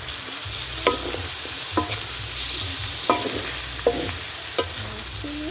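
Chicken curry frying and sizzling in a pan as the curry powder is stirred in. The cooking utensil clinks sharply against the pan about five times.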